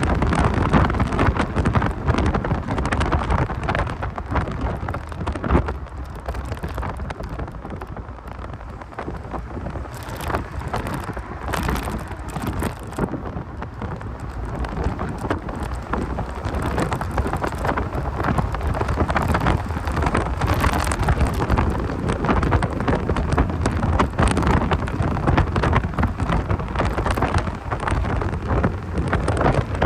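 1990 Mazda Miata's 1.6-litre four-cylinder and road noise while driving, heard through a poor, crackling microphone so that it comes out as a steady rumble with a rain-like hiss and crackle.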